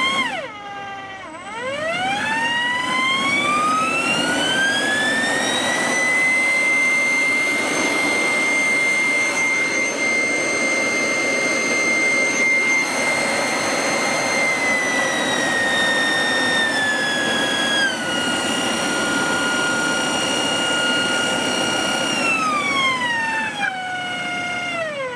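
Side channel blower's impeller screaming as a variable frequency drive sets its speed, with the pitch following the drive frequency. It dips briefly at the start, rises over about five seconds to a steady high scream, steps down twice, then glides down near the end as the frequency is turned down.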